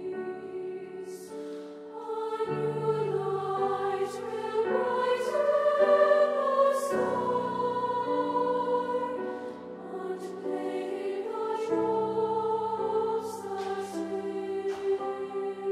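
Treble choir of young female voices singing a slow, sustained choral piece with grand piano accompaniment. The sound swells to its loudest about six seconds in, eases off around ten seconds, then builds again.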